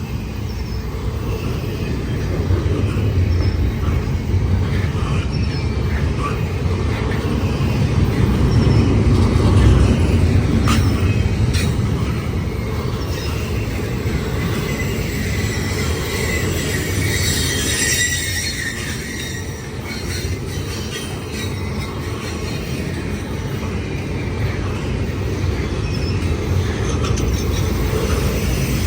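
Long freight train's cars rolling past with a steady low rumble of wheels on rail, a few sharp clicks, and faint wheel squeal a little past the middle.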